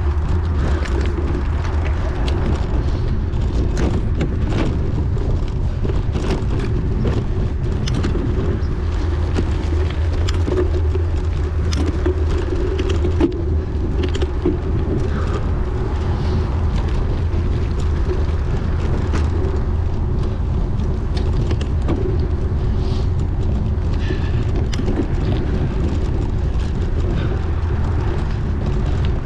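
Wind rumbling on the microphone while a race bicycle is ridden at speed, the bike rattling with frequent small clicks and knocks.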